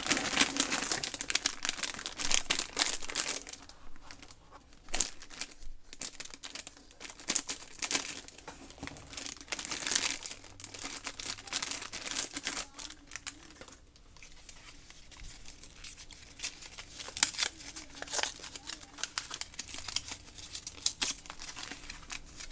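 Foil blind-bag wrapper crinkling and tearing as it is opened by hand, in irregular spells of crackling.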